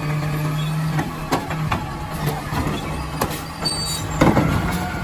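Automated side-loader garbage truck running with a steady engine hum while its mechanical arm handles a wheeled trash cart, with several sharp knocks and clunks of the cart and arm.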